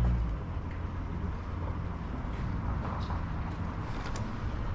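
UAZ Patriot engine idling steadily, with a few faint clicks over it.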